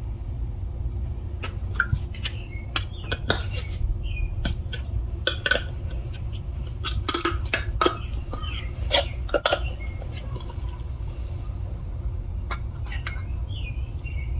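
Irregular light clinks and taps of hard objects being handled, some sharper than others, over a steady low hum.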